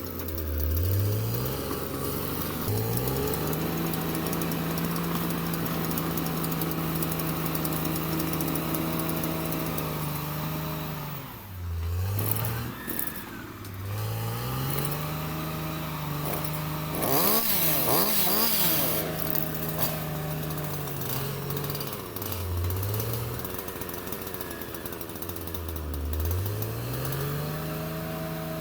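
Caterpillar D6R XL bulldozer's diesel engine working under load, revving up and holding high for several seconds, then dropping back and revving up again, about four times. A harsher, rattling stretch of noise sits over the engine a little past the middle.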